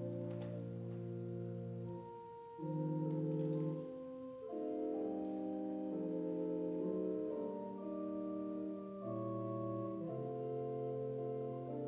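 Slow keyboard music in held chords that change every second or so, with short breaks between phrases.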